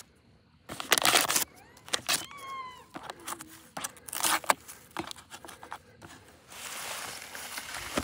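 Scattered rustles and clicks from handling a cardboard fireworks cake box on grass, with a brief squeaky pitched sound about two seconds in and a longer rustle near the end.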